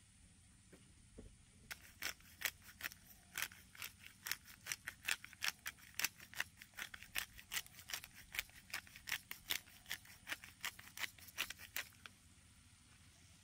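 A hand-held glass spice grinder is being twisted over the pan, giving a quick run of crisp grinding clicks at about four a second. The clicks start just under two seconds in and stop about two seconds before the end.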